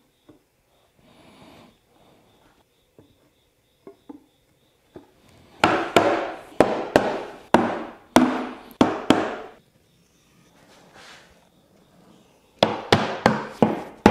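Mallet striking the top panel of a plywood box to seat it during glue-up. After a few faint handling knocks, there is a run of about nine sharp blows, each ringing briefly in the box, then a quicker run of about six near the end.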